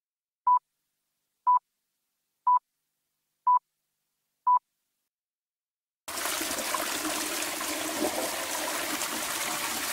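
Five short electronic beeps at one pitch, one a second, a timer-like sound effect marking time passing. About six seconds in, a steady rush of churning water starts: a washing machine's drum washing a teddy bear.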